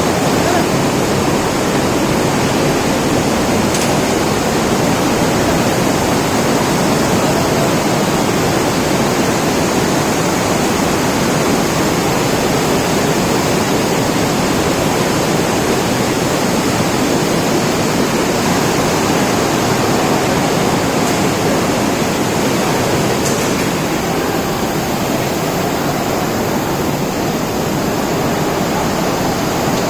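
Loud, steady rush of flowing rainwater, an even wash of noise with no breaks.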